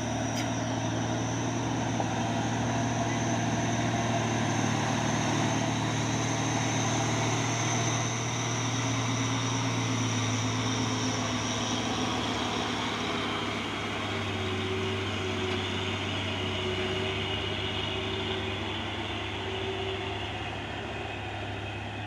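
Heavy truck engine running steadily under load, with a high whine over it that fades out about halfway through; the engine note drops slightly a little later.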